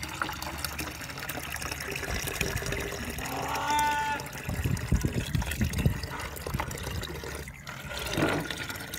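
Water pouring from a pipe into a white plastic poultry drinker bottle, the stream splashing as it fills. A short call from a farm animal about three and a half seconds in.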